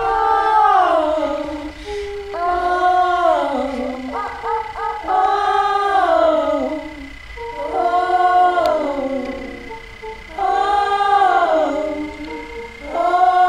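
Music: layered wordless voices sing the same rising-then-falling phrase over and over, a new phrase every two and a half seconds or so, with a thin steady high tone underneath.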